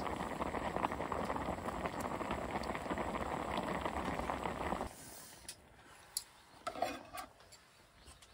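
Broth boiling hard in a cooking pot, a dense crackling bubbling and sizzling that cuts off abruptly about five seconds in, followed by a few faint clicks.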